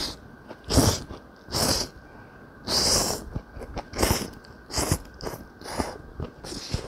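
Close-miked slurping of jjamppong noodles: a series of short, noisy slurps, one longer drawn-in slurp about three seconds in, with chewing between.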